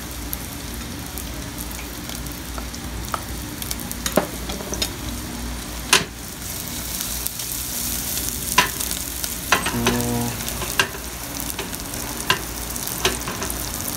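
Chopped onion sizzling and frying in a little oil in a nonstick saucepan as it is sautéed, a steady hiss broken now and then by sharp clicks and knocks.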